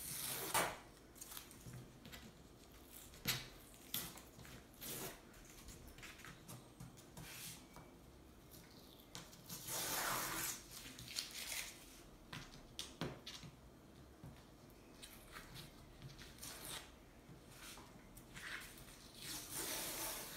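Old masking tape being peeled off a paper mount board, with paper and card rustling and brief handling taps. The longest peel comes about ten seconds in.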